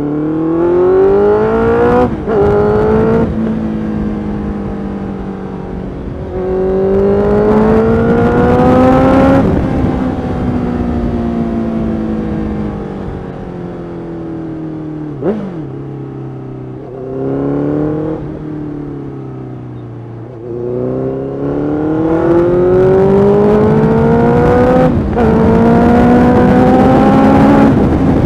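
Honda CBR650F's 649cc inline-four engine heard on board while riding. It rises in pitch under acceleration with sharp drops at upshifts about two and three seconds in, falls off for several seconds around the middle as the throttle is eased, then climbs again through more shifts toward the end.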